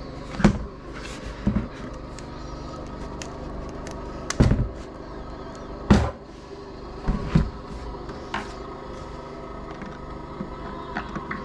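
About half a dozen irregular knocks and clunks of hard objects being handled, some in quick pairs, over a steady low hum.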